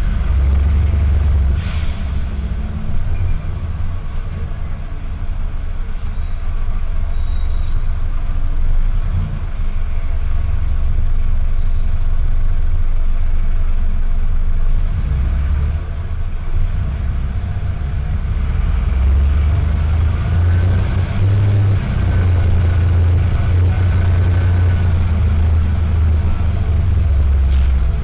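A Mercedes-Benz OH1618L-SB bus under way, heard from inside: its OM904LA four-cylinder turbodiesel drones low, mixed with the air-conditioning compressor and its pulley. The drone grows louder about ten seconds in and dips briefly in the middle.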